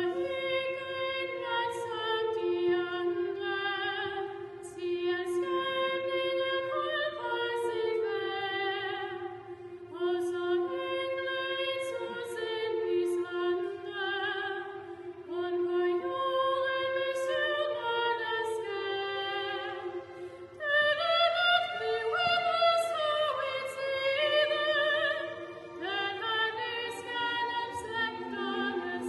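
A choir singing a slow Christmas song in Danish, accompanied by a chamber orchestra. The singing swells louder and fuller about two-thirds of the way in.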